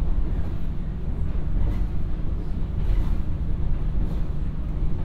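Running noise of a 115 series electric train at speed, heard from inside the carriage: a steady low rumble of wheels on the rails with a faint hum over it.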